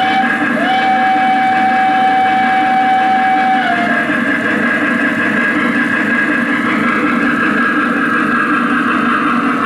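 Lionel Vision Line Pennsylvania CC2 0-8-8-0 model steam locomotive's sound system blowing its Pennsylvania hooter whistle: a brief toot, then one long blast that sags in pitch and stops about four seconds in. A steady hiss from the standing locomotive runs underneath.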